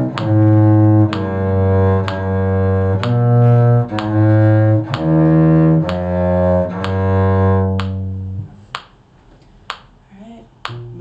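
Cello playing a slow bass line in long bowed notes, changing about once a second, over a metronome clicking about once a second. The playing stops about eight seconds in and the clicks carry on alone.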